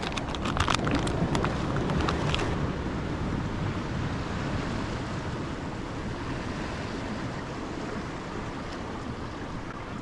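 Pacific Ocean surf washing on the beach with wind rumbling on the microphone, a steady noise throughout. A run of sharp clicks sounds in the first two and a half seconds.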